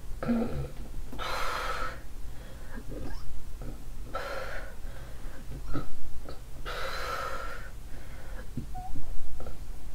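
A woman retching: three breathy heaves about a second each, from nausea after drinking wine on an empty stomach. Faint small clicks between the heaves.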